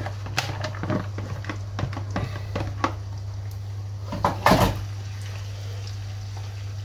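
A spatula scraping and tapping chopped onion out of a plastic tub into a frying pan, then stirring it in the pan: scattered light taps and clicks, with a louder clatter about four seconds in, over a steady low hum.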